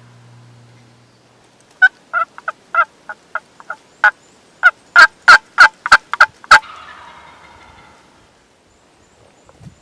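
Turkey yelping: a run of about fifteen short, sharp notes, growing louder, followed about seven seconds in by a rolling gobble.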